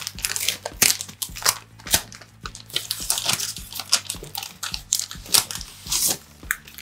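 Brown kraft paper wrapping crinkling and crackling as hands open and unfold it, a run of many short, irregular crackles.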